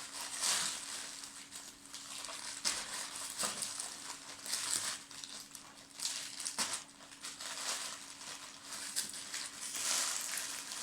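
Packaging crinkling and rustling in irregular bursts, with a few clicks, as kit parts are handled and taken out of a box. A faint steady hum runs underneath.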